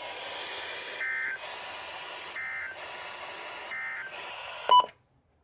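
NOAA Weather Radio broadcast from a weather radio's speaker: three short bursts of EAS end-of-message data tones, about 1.4 seconds apart, over steady static hiss, closing the Required Weekly Test. Near the end comes a short loud beep, and then the sound cuts off.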